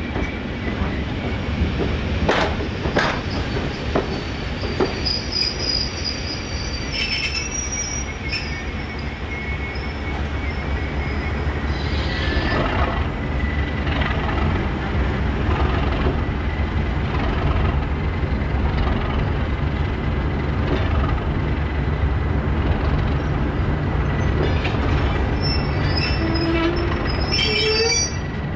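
Class 37 diesel locomotive's English Electric V12 engine rumbling as the slow test train rolls by, growing louder as the locomotive draws near. Sharp clicks of wheels over rail joints come in the first few seconds, and a thin, steady high-pitched wheel squeal runs throughout, with shriller squeals a few seconds in and near the end.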